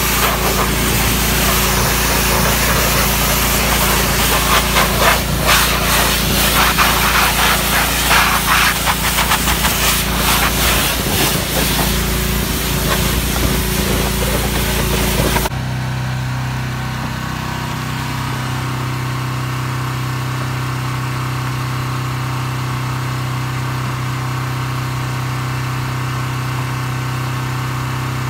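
High-pressure washer spray hissing against a semi truck's engine bay and cab, over the steady hum of the washer's motor. It cuts off suddenly about halfway through, and a steady engine hum carries on after.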